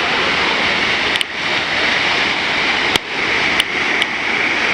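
Large waterfall pouring with a loud, steady rush of falling water, with a few faint clicks over it.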